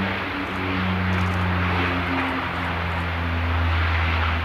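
Saab 340 twin-turboprop airliner rolling along the runway, its propellers and engines giving a steady low drone with a hiss above it. It swells slightly near the end.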